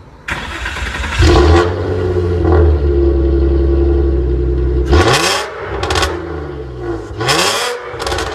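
Nissan 350Z's V6 engine and exhaust revved while parked. About a second in it rises to a steady held rev for several seconds, then three sharp throttle blips, each swooping up and falling back.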